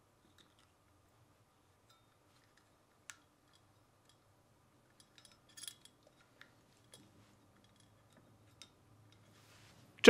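Near silence with a few faint clicks and small handling sounds: plastic wire nuts being twisted onto the white wires.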